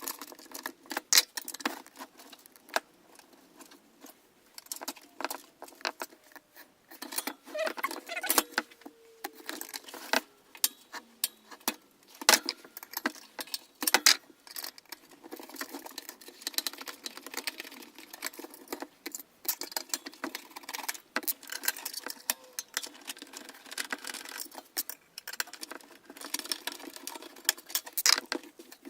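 Irregular clicks, taps and rattles of screws and metal and plastic computer-case parts being handled as a case fan tray is unscrewed and worked loose.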